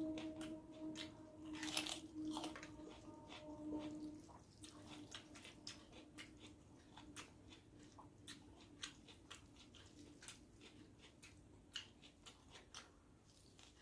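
A person chewing and biting into crunchy food at close range, with many short wet mouth clicks and a louder crunch about two seconds in. A faint steady hum fades out after about four seconds.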